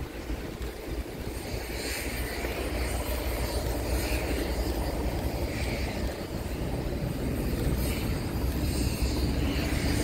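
Diesel freight locomotive approaching from a distance: a low engine rumble that grows steadily louder.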